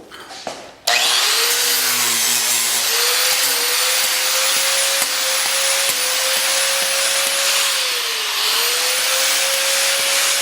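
Angle grinder switched on about a second in, spinning up with a rising whine and then running steadily. Its pitch sags briefly a couple of times, about midway and near the end, as the disc is loaded.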